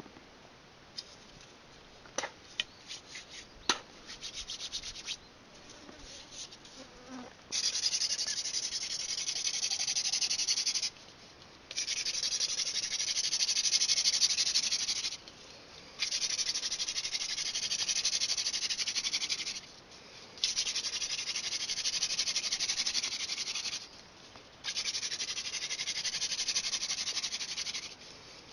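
Wooden hand-drill spindle spun back and forth between the palms against a fireboard, making a rasping rub in five runs of three to four seconds each, with short breaks as the hands go back to the top of the spindle. Before the drilling, a few light clicks and rustles as sticks are set down on dry leaf litter.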